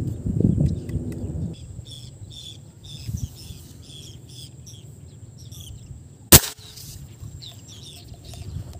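A fishing gun fires once, a single sharp, loud crack about six seconds in. Birds chirp in the background, and there is low rumbling handling noise at the start.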